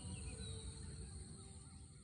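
Outdoor rural ambience: a steady high insect drone with a few short bird chirps over a low rumble, slowly fading out.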